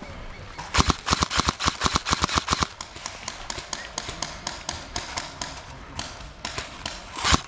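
Airsoft guns firing: a rapid burst of sharp snapping shots about a second in, then scattered single shots and short bursts.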